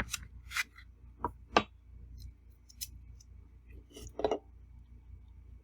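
Eating utensils clinking and tapping against a plate: a handful of short, separate clicks, two of them with a brief ring, the loudest about one and a half seconds in.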